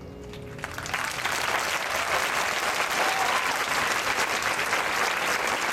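The last of the live tango music dies away, and an audience breaks into applause under a second in, clapping steadily and loudly. A short call from the crowd comes about three seconds in.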